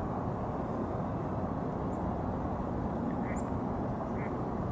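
A steady low rushing noise, with faint short bird calls, most likely ducks quacking, repeating roughly once a second in the second half.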